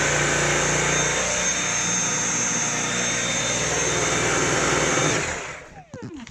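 Dyson V7 Animal cordless stick vacuum running with the wand and motorised floor head attached: a steady suction rush with a high whine. About five seconds in it is switched off and the motor winds down, its pitch falling away.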